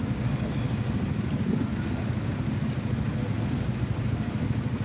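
Vehicle engines idling in stopped traffic: a steady low rumble with no revving.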